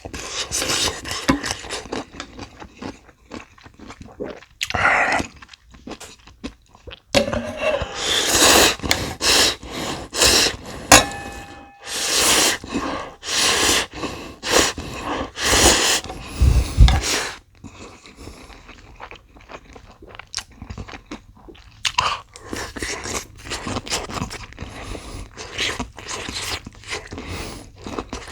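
Close-miked eating of instant ramyeon noodles and kkakdugi radish kimchi: chewing and crunching. In the middle there is a louder stretch of repeated sounds, about one a second.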